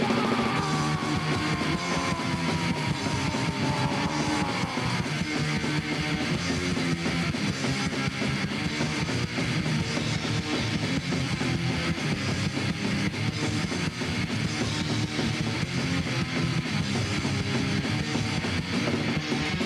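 A rock band playing an instrumental passage with heavily distorted electric guitar, bass and drums, with a falling pitch slide on the guitar in the first few seconds.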